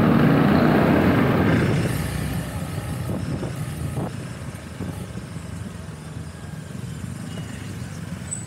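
A motorcycle and the scooter and motorcycle traffic around it, heard from the rider's seat: a loud low engine and road noise for the first two seconds, then a lower steady hum.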